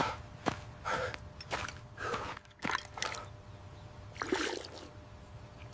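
AI-generated (Veo 3.1) sound of a man breathing hard after a run, in short gasping breaths about two a second, with a pause in the middle.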